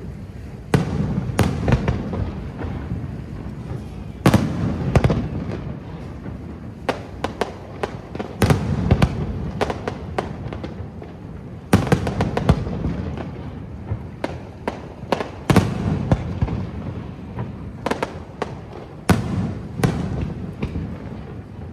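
Fireworks display: aerial shells bursting in a rapid, irregular run of sharp bangs, several in quick clusters, over a continuous low rumble.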